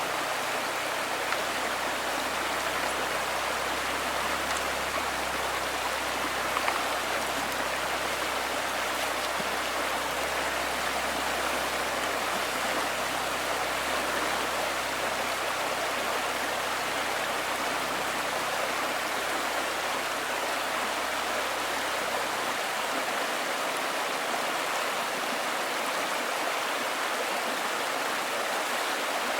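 Steady hiss of rushing water, even throughout, with a faint low hum underneath that stops about 22 seconds in.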